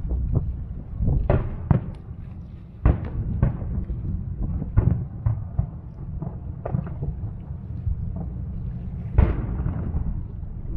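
Aerial firework shells bursting one after another in an irregular run of booms, each with a short echo trailing off. The loudest bang comes about nine seconds in.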